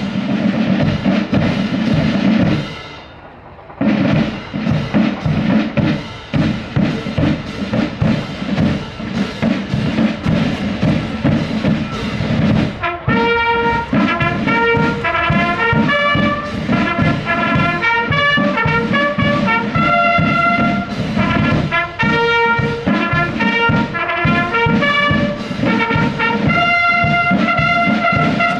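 Uniformed drum and brass marching band playing. The drums play alone at first, with a brief break about three seconds in. About thirteen seconds in the brass horns come in with a tune over the drums.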